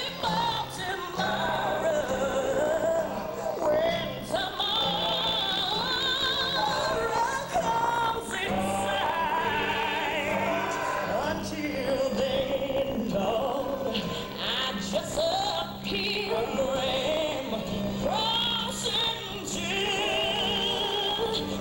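Operatic singing with a wide vibrato over a low, sustained accompaniment of held notes.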